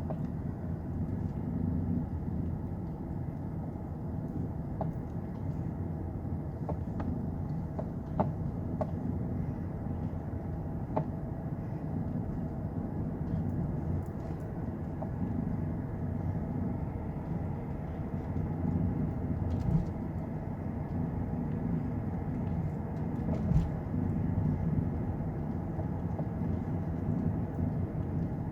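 Inside the cabin of a 2009 Lexus LS460 driving over rough pavement: steady road and tyre rumble with occasional faint clicks and knocks. This is the light rattle from the driver's-side front suspension, which the mechanic takes to be most likely play inside the front shock absorber.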